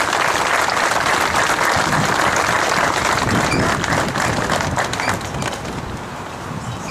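Crowd applauding, a dense patter of many hands clapping that thins out and dies away after about five seconds.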